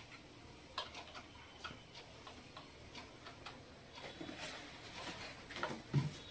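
Faint, irregular light clicks and taps as cloth is handled and adjusted at a treadle sewing machine, with a soft thump about six seconds in as the fabric is pressed flat on the table.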